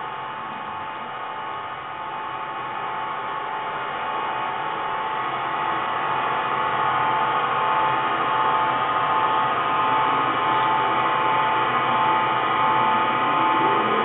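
A sustained drone of several steady held tones from a live experimental music performance, slowly growing louder.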